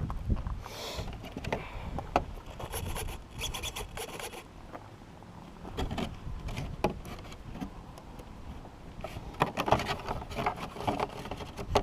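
Scraping, rubbing and clicking as the nitro RC truck is handled, in irregular bursts with no engine running, and low wind rumble on the microphone at the start.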